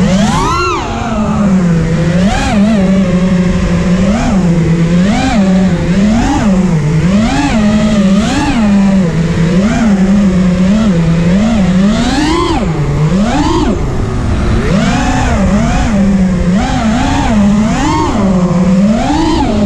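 FPV racing quadcopter's Garila 2506 2600 kV brushless motors on a 4S battery, a continuous buzzing whine whose pitch repeatedly swells up and drops back, about once a second, with the throttle.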